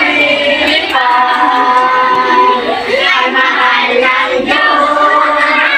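A group of children singing a song together, many voices at once, without a break.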